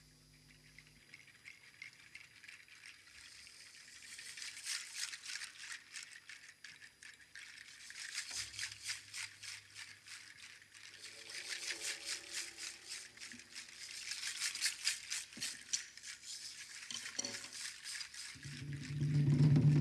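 Hand-shaken percussion rattle played in fast, even strokes that swell and fade in waves. Near the end a louder, lower sound joins in.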